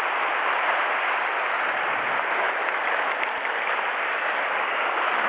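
Steady wash of sea surf breaking and churning on a rocky shore.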